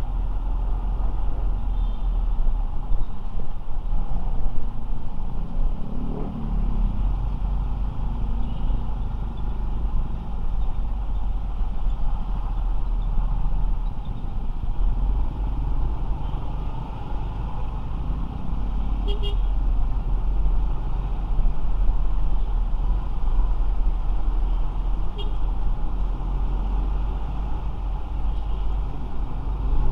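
Motorcycle ride in city traffic: steady engine, road and passing-traffic noise with a heavy low rumble.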